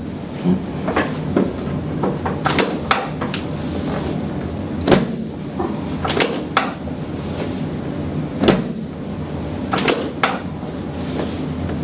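A run of about ten short, sharp clicks and knocks at uneven intervals over a steady low hum, as a patient's leg is lifted and worked on a chiropractic treatment table.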